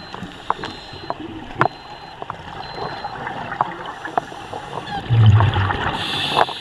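Underwater sound around a scuba diver: muffled gurgling water noise with scattered sharp clicks, and a louder low rumble about five seconds in.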